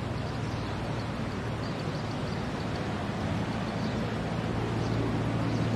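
A steady low mechanical hum, like an engine or machine running, over a faint even outdoor hiss; it grows slightly louder near the end.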